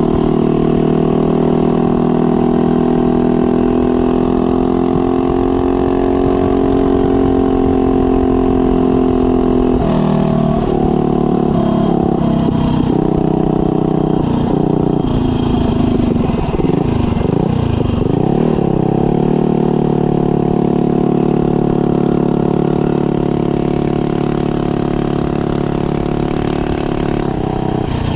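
Mega Moto 212cc minibike's single-cylinder engine running under way at a steady pitch. From about ten seconds in its pitch rises and falls several times as the throttle is worked, and it steadies again after about nineteen seconds.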